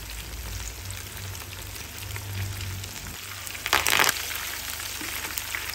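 Crumbed prawns deep-frying in hot oil in a frying pan, with a steady sizzle of bubbling oil. Near four seconds in comes a short, louder burst of crackling as curry leaves go into the hot oil.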